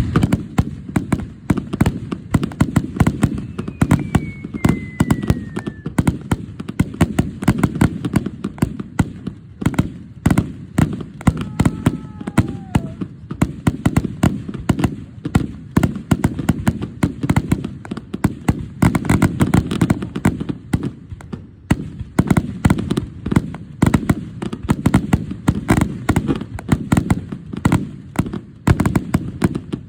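Fireworks display: a dense, continuous barrage of bursts and crackles with a heavy low rumble, many reports a second.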